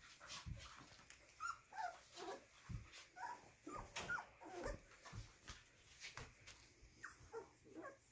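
A litter of 23-day-old puppies giving many short, high yips, squeaks and little whimpers while they play-fight, with soft knocks from their scrabbling.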